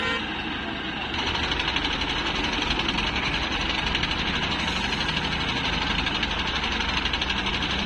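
Diesel engine of an ACE 12XW mobile crane running steadily with a fast, even pulsing; it gets louder about a second in.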